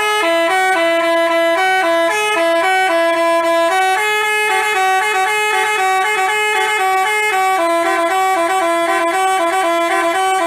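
Basuri telolet multi-tone horn playing a fast tune, its notes changing several times a second.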